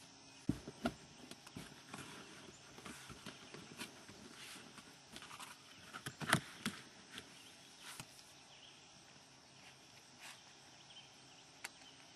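Red corrugated-plastic (coroplast) folding kayak being handled and climbed into: scattered sharp knocks and crackles of the plastic hull, strongest about six seconds in, with footsteps on grass.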